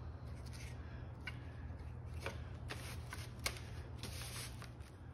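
Thin white oak strips being slid and laid out side by side on a plastic-covered workbench: light wooden clicks and scraping, with a sharper tap about three and a half seconds in.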